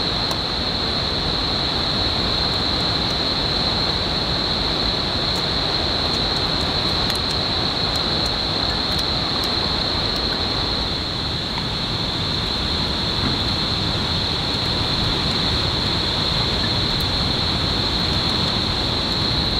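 Steady rushing outdoor noise with a continuous high-pitched whine held on top.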